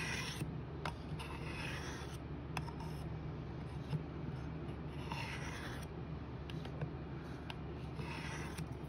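Steel knife blade drawn along the ceramic rod of a Work Sharp sharpener: a few soft scraping strokes with pauses between them, and small ticks of the blade meeting the rod. These are light honing passes.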